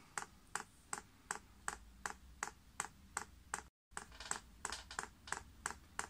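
Chinese diesel heater's solenoid fuel dosing pump clicking evenly, about four clicks a second, as it runs its priming cycle to draw fuel up the line. The sound cuts out briefly a little before four seconds in, then the clicking resumes.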